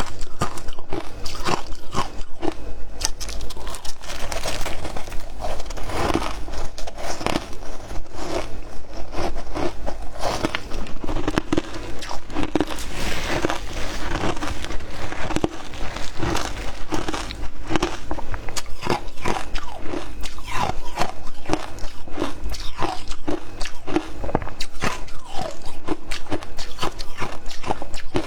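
Frozen matcha ice being bitten and chewed: a continuous run of loud, hard crunches, several a second.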